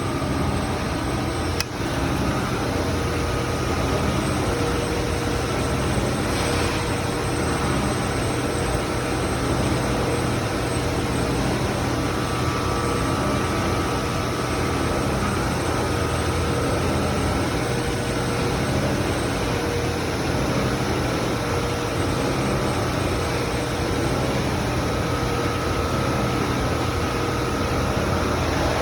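BDS MAB 825 magnetic drilling machine's motor running steadily under load, with a constant hum and a sharp click about two seconds in.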